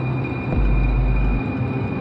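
Eerie, suspenseful background music: steady held tones over a deep bass pulse that swells about every second and a half.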